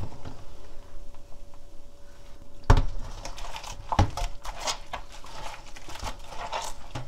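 Gamtae seaweed being rubbed and squeezed by hand with salt in a stainless steel bowl of foamy water to scrub out mudflat silt: irregular squelching and sloshing, with a few sharper knocks against the bowl, the loudest about two and a half seconds in.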